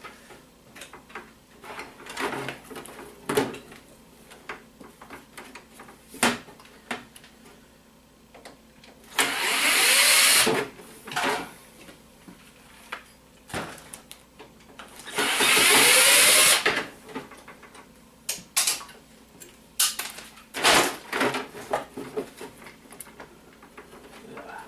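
Cordless power driver whirring twice, each run about two seconds long with the motor's pitch rising as it spins up, driving out screws from a printer's plastic housing. Scattered clicks and knocks of plastic parts being handled come between the runs.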